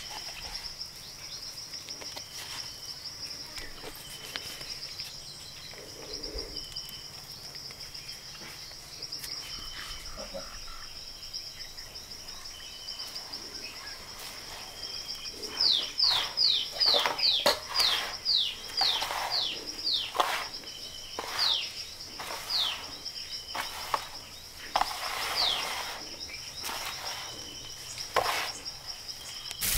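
A steady, high-pitched insect drone, with a bird calling a quick run of short notes that each fall in pitch, loudest around the middle.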